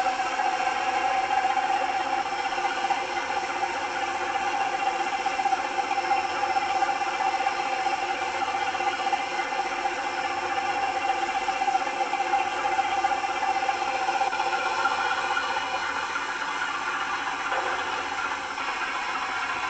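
Plymouth locomotive's engine running steadily, with a rattle.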